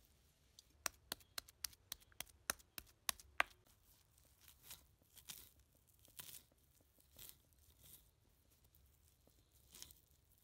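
Small knife chopping fresh basil leaves on a wooden board: a quick run of sharp chops, about four a second, then softer slicing and rustling of the leaves as they are cut and gathered.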